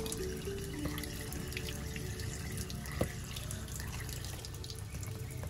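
Tap water running and splashing into a woven bamboo basket while hands rub and rinse cucumbers in it, with one sharper knock about three seconds in.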